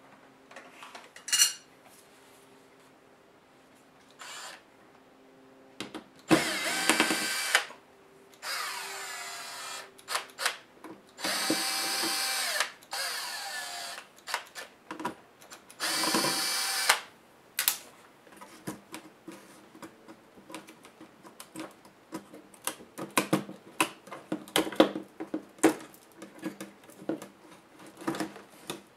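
Cordless drill-driver spinning out the laptop's screws in four short runs of one to two seconds each, its motor whine shifting in pitch. Afterwards comes a string of small clicks and knocks as the motherboard and plastic case are handled.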